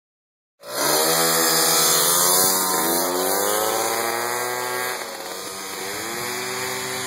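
Two tuned two-stroke mopeds, a Honda Hobbit with a Polini kit and a Vespa moped with a Malossi kit, revving hard and accelerating from a standing start. Their engine notes climb in pitch in long rising sweeps and grow somewhat quieter after about five seconds as they pull away.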